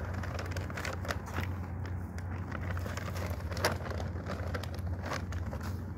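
Footsteps on concrete and rustling of a plastic bag, with scattered small clicks, over a steady low hum.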